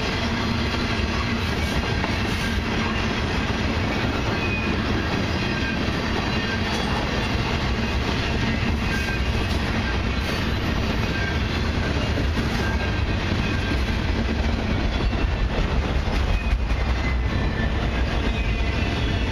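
A long freight train's tank cars, then autorack cars, rolling past close by: a steady rumble of steel wheels on rail that swells a little near the end.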